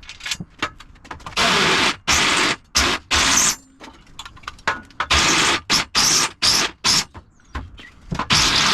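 Power drill with a countersink bit cutting into steel plate in short bursts of about half a second, about seven in a row with brief pauses between them.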